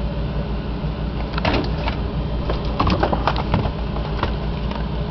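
Plastic food packages rustling and clicking as they are handled, in scattered bursts through the middle, over a steady low hum.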